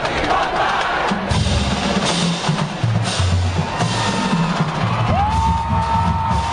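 Marching band drumline playing a rhythmic cadence, with pitched bass drums hitting a changing pattern of low notes under snare drums.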